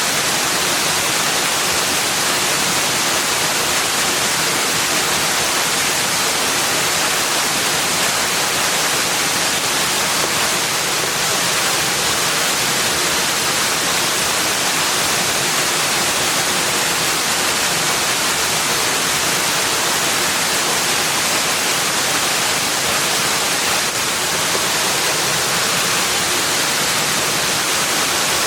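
Steady, even rushing of flowing water, a constant hiss with no distinct events or changes.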